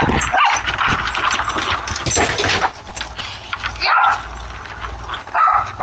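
Dogs at the door, picked up by a home security camera's microphone: a dense noisy stretch of movement for the first couple of seconds, then short dog calls about four seconds in and again near the end.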